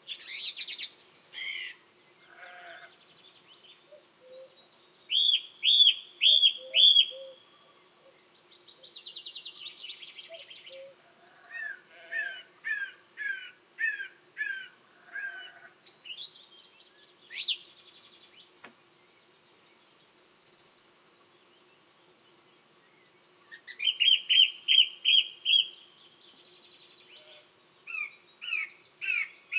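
Song thrush singing: loud, clear whistled phrases, each note repeated several times in a row, with pauses of a few seconds between phrases and quieter bird calls in between.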